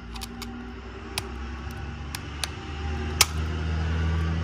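Utility knife cutting the plastic nozzle tip off a tube of sealing compound: a string of sharp clicks and snaps, the loudest a little after three seconds in. Underneath, a low mechanical hum swells about two-thirds of the way through and holds.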